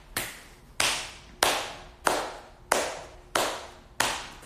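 One person clapping hands in a steady beat, seven claps about one and a half a second, each dying away with a short room echo.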